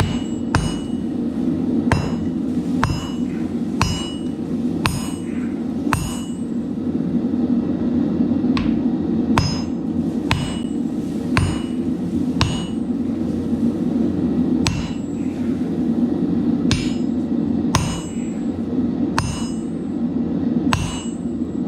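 Hand hammer striking a hot Damascus billet on an anvil, about once a second with a short pause, each blow ringing briefly: setting the forge welds by hand. A steady low rushing noise runs underneath.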